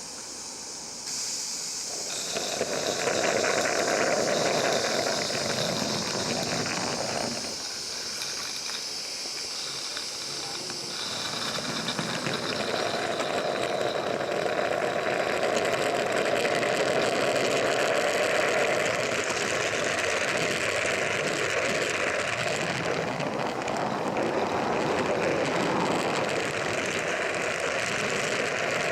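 A 16mm-scale live-steam garden railway locomotive hissing steam steadily. The hiss eases off for a few seconds in the middle, then comes back.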